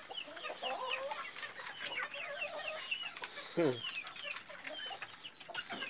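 Young chickens peeping in a busy chorus of short, high, falling chirps, with lower clucking calls from older birds underneath and a single deeper falling call about three and a half seconds in.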